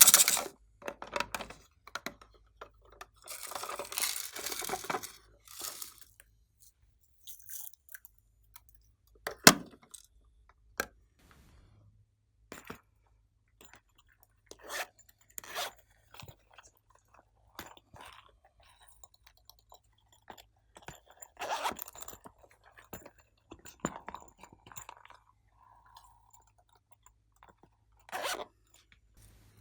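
Hands squishing, stretching and folding glossy slime: irregular crackles, pops and clicks, with short pauses between handfuls.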